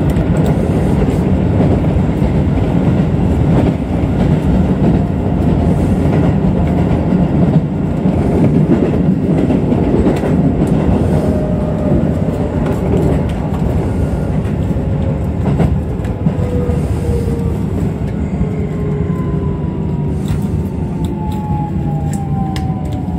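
Keisei Electric Railway electric train running, heard from the driver's cab: a steady rumble of wheels on rail with occasional sharp rail clicks. From about halfway, the traction motor whine slides down in pitch as the train brakes into a station.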